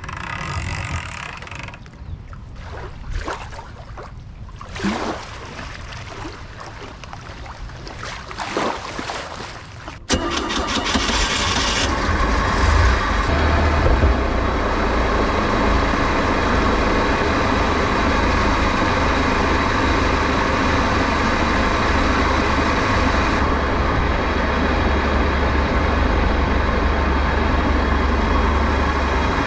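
OMC Cobra 3.0-litre four-cylinder sterndrive engine running steadily under way, heard close up with no engine cover over it. It comes in suddenly about ten seconds in, after a quieter stretch of irregular splashing and handling sounds.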